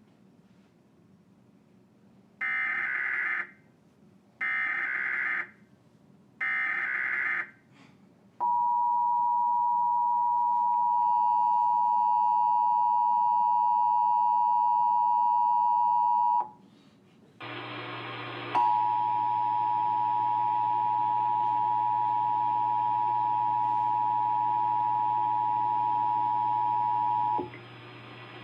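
Emergency Alert System test signal: three short bursts of the SAME digital header, about a second each, then the steady two-tone attention signal for about eight seconds. After a brief break the attention tone sounds again for about nine seconds, this time over a loud low hum.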